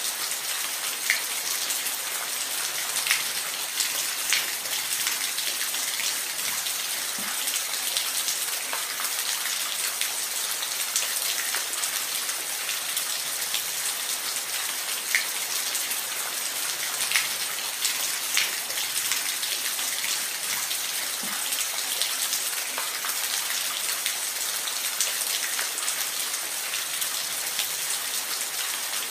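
Falling water: a steady, bright hiss with scattered sharp splashes of single drops.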